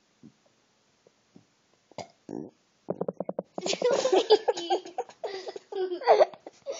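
A child's burp with a rapid rattle, about three seconds in, followed by loud laughter.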